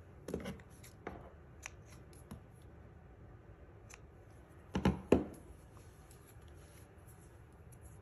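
Scissors cutting twine: a few light clicks, then two sharp snips close together about five seconds in.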